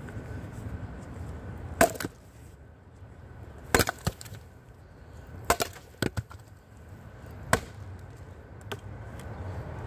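Axe chopping into a log round to split firewood: four sharp chops about two seconds apart, with a few lighter knocks in between.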